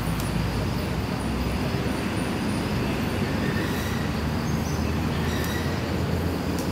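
Steady low rumble of outdoor background noise, with a few faint, short, high chirps.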